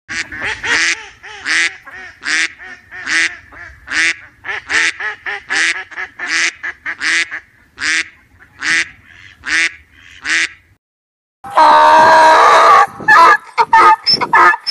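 Domestic duck quacking over and over, about one quack every 0.8 seconds, for around ten seconds. After a short pause, a donkey brays loudly, the bray breaking into choppy gasps near the end.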